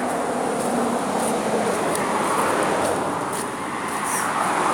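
Steady rush of road traffic passing close by.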